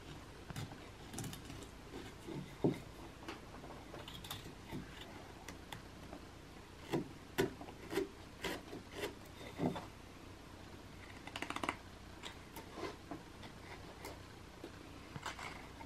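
Knife blade slicing and shaving basswood by hand while whittling a small figure: irregular short cuts and scrapes, a few louder strokes in the middle and a quick run of small scrapes a little later.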